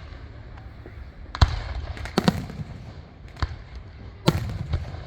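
Fireworks exploding overhead: a string of sharp bangs, about five in all with a close double about two seconds in, each trailing off in a low rumbling echo; the loudest comes about four seconds in.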